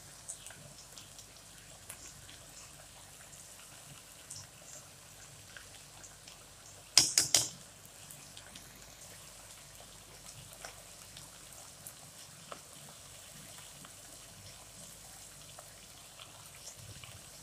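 A spoon clinking sharply three times in quick succession about seven seconds in, as spice powder is added to the pan; otherwise only faint scattered ticks.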